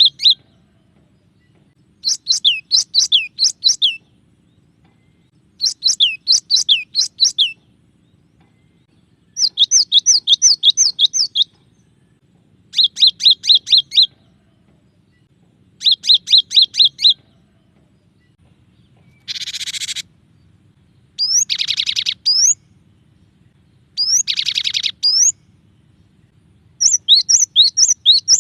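Cinereous tit (glatik batu) singing in varied phrases: bouts of about two seconds of rapid repeated whistled notes, with short pauses between. About two-thirds through, a harsh buzzy call breaks in and buzzier phrases follow.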